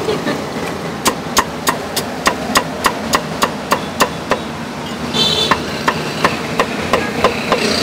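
Meat cleaver chopping roast meat on a thick round wooden chopping block: a steady run of sharp knocks, about three a second, starting about a second in, over a steady background hum.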